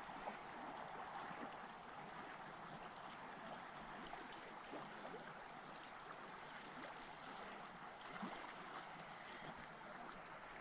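A river flowing over a shallow, rippled stretch: a faint, steady rush of water.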